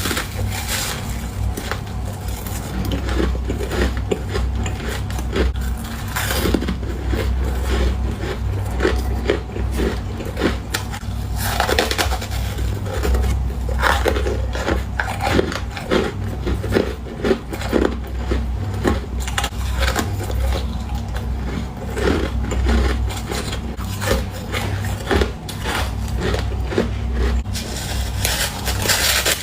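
Ice being bitten and chewed close to the microphone: a long, irregular run of cracks and crunches. A steady low hum runs underneath.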